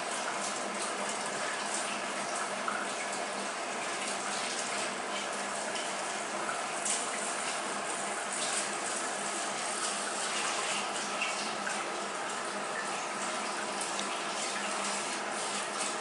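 Steady rush and splash of circulating water in a reef aquarium, with a few faint crackles scattered through it.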